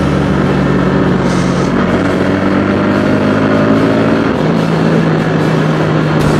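Motorcycle engine running at a steady cruise. Its pitch rises a little through the middle, and there is a short break in the hum a little past four seconds.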